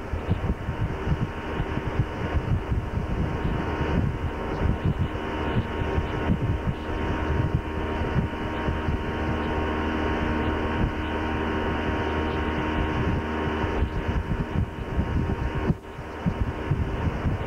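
Motorboat engine running steadily at towing speed, a constant drone, with wind buffeting the microphone. The sound drops out briefly near the end.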